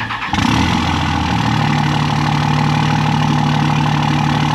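Skid steer engine idling steadily; it starts being heard about a third of a second in and settles into an even note about a second later.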